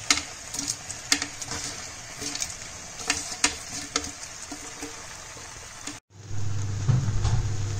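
Metal slotted spoon clinking and scraping in a kadhai as deep-fried cauliflower is tossed in sauce, over a faint sizzle. About six seconds in the sound cuts off, and a louder steady low hum follows.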